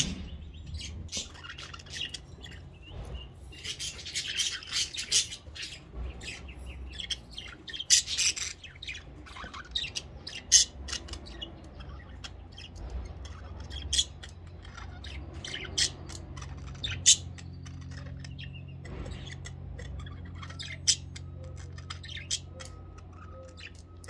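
Budgerigars chirping and squawking in short, scattered calls, busier about four and eight seconds in, over a steady low hum.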